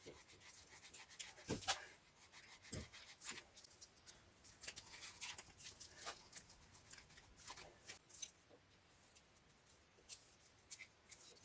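Faint scattered clicks, scrapes and a couple of light knocks from vice grips working a rusted-in ABS wheel speed sensor back and forth to free it from its bore.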